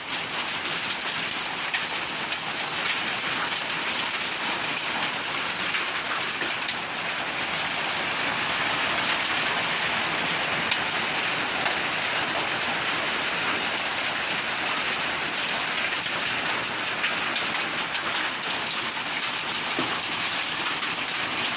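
Heavy rain mixed with hail coming down: a dense, steady hiss of many small hits.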